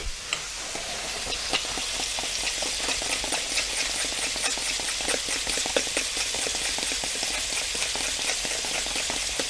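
Halved mandarins frying in hot vegetable oil in a frying pan: a steady sizzle with many small crackles and spits of oil throughout.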